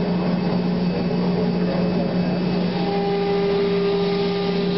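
C.R. Onsrud Panel Pro CNC router running with a steady machine hum and a hiss. A higher steady tone joins about three seconds in.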